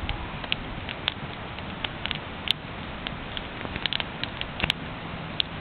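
Wood bonfire crackling: irregular sharp pops and snaps scattered over a steady hiss, a few louder pops about two and a half, four and a half and five and a half seconds in.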